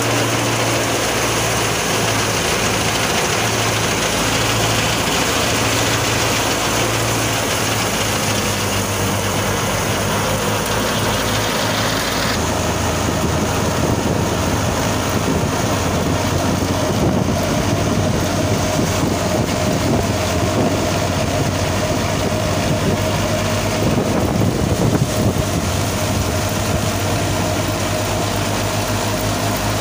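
Fiat 480 tractor's diesel engine running steadily while driving a wheat thresher, with the threshing machine's whirring mixed in. The mix of low hum and higher noise shifts about twelve seconds in.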